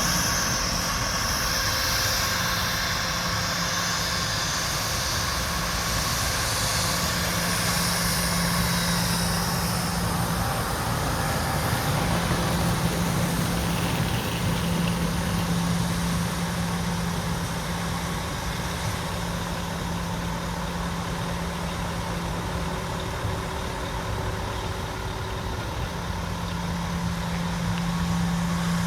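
Jet airliner engines running at idle while the aircraft taxis: a steady low hum, with a high hiss that fades away over the first ten seconds.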